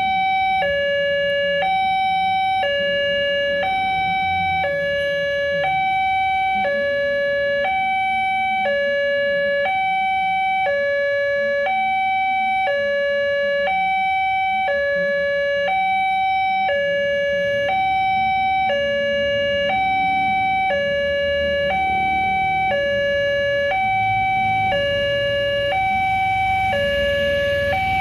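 Railway level-crossing electronic warning alarm sounding two tones that alternate high and low in a steady, unbroken rhythm, signalling that the barriers are down and a train is approaching.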